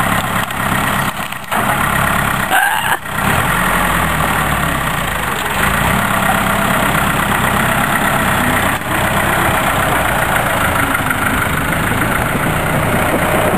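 Diesel engine of a 1985 UTB Universal 640 4x4 tractor running steadily as its front loader lifts and pushes a shed wall, with two brief dips in loudness in the first few seconds.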